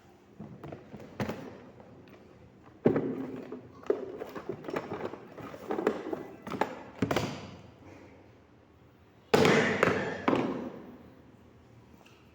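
A series of irregular knocks and thuds, each with a short ringing tail, and a louder, longer clatter about nine and a half seconds in.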